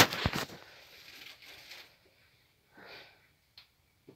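A sharp knock and a short clatter of wood and stove items being handled at a clay wood-burning stove, then faint rustling and a couple of small clicks.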